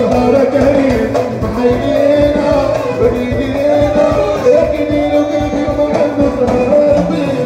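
Live Moroccan chaabi music, loud through a sound system: a man singing into a microphone over a band with a steady drum beat.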